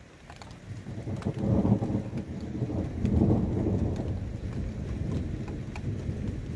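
Thunder rumbling from a weak thunderstorm: a deep roll that builds about a second in, swells twice and slowly trails off. Scattered raindrops tick throughout.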